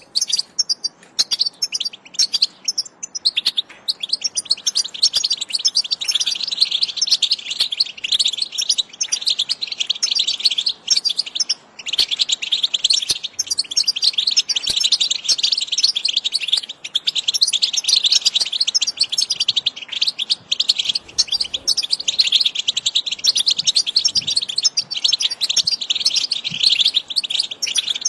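European goldfinch song: rapid, continuous high-pitched twittering and trills.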